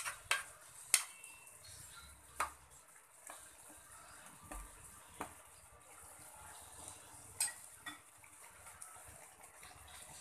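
A metal spatula clinking and scraping against a nonstick wok while a thick coconut-milk stew is stirred, a handful of sharp clinks, most in the first few seconds, over a steady faint hiss from the simmering pan.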